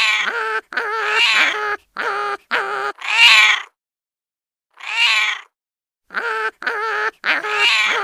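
An animal calling repeatedly: about ten short, wavering, meow-like cries, each half a second to a second long, with abrupt silent gaps between them.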